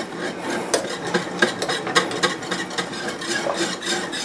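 A spoon stirring a thick, hot soup mixture, with repeated scrapes and clinks against the container, several a second.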